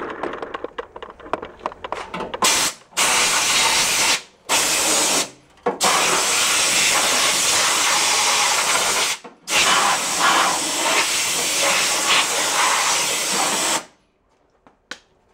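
Compressed-air blow gun blasting debris out of a rusted battery-tray floor pan: a loud, even hiss in long bursts, cut off briefly four times and stopping shortly before the end. Light clattering comes before the first burst.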